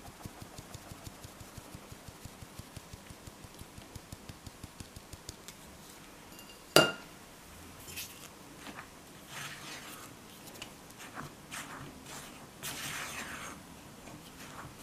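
A mesh flour sieve is tapped in a steady rhythm, about three or four small taps a second, as flour sifts into a glass bowl. About seven seconds in there is one loud, sharp clink with a brief ring. After it, a silicone spatula scrapes and stirs the dry flour into the wet batter in the glass bowl in irregular strokes.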